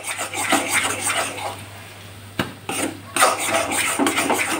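Metal spoon scraping and stirring thick, crumbly egg-yolk halwa in a metal kadhai: quick irregular scrapes against the pan, with a sharp clink about two and a half seconds in.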